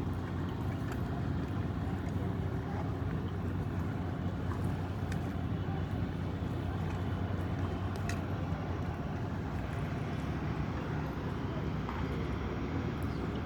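Boat engine running steadily, a constant low drone with no change in pitch.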